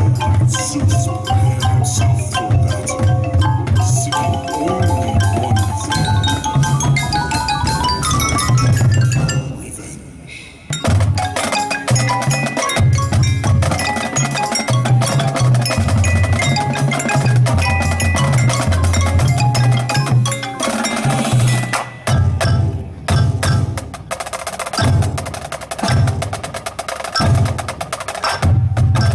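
Marching band music led by the front ensemble's mallet percussion (marimba and glockenspiel) over a heavy low bass line, with a rising run of mallet notes. The music drops away briefly about ten seconds in, then the full band comes back in with drum hits.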